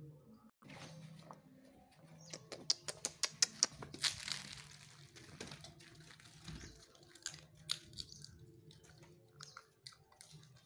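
Gray langurs and puppies scuffling on brick paving: a quick run of sharp clicks and scrabbling about two seconds in, a brief rustling burst, then scattered smaller clicks.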